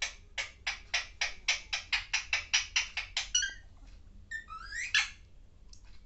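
Alexandrine parakeet laughing: a fast run of short, harsh chuckling notes, about five a second for three seconds, then a short squawk and a couple of gliding calls.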